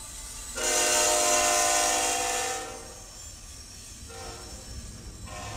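Train horn sounding: one loud blast of about two seconds, then a short, quieter blast about four seconds in and another beginning near the end.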